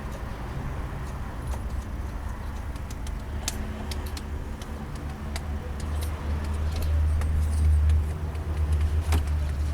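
Audi A4 B6 1.9 TDI four-cylinder diesel engine running with a low hum and scattered short clicks and ticks; the hum grows louder for a couple of seconds about seven seconds in. The noise is one the mechanic first takes for a faulty tensioner, though he is not sure.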